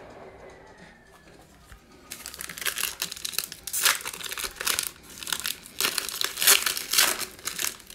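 Foil wrapper of a Prizm football card pack being torn open and crinkled by hand: a string of crackling rustles and tears that starts about two seconds in.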